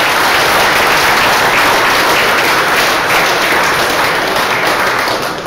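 Audience applauding steadily after an award winner is announced, the clapping easing off slightly near the end.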